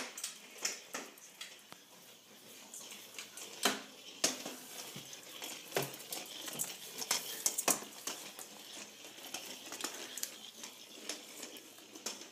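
Motorised weasel-ball toy rolling on a tile floor, its hard plastic ball clicking and knocking irregularly against the tiles and chair legs as it gets stuck.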